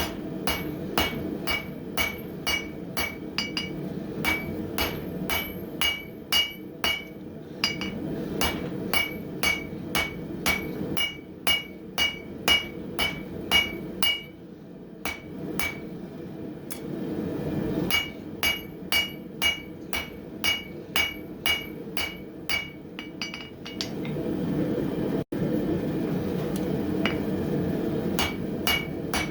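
Blacksmith's hand hammer striking hot steel on an anvil in steady half-face blows, about two to three a second, each with a bright ring from the anvil. The blows are setting a step in the bar over the anvil's rounded edge. The hammering pauses briefly twice, once near the middle and once a few seconds before the end, over a steady low rush.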